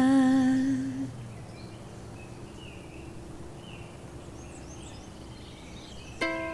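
The song's final held sung note fades out within the first second, leaving quiet outdoor ambience with a few faint bird chirps. Just before the end, plucked ukulele notes begin.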